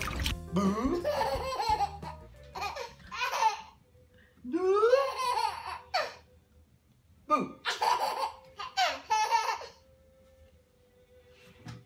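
A baby laughing in a string of about five bursts of giggles and belly laughs, with short quiet pauses between them.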